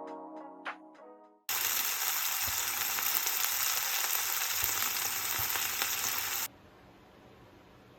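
The last notes of music, then a loud steady hiss that starts abruptly about a second and a half in and cuts off sharply about five seconds later, leaving faint room tone.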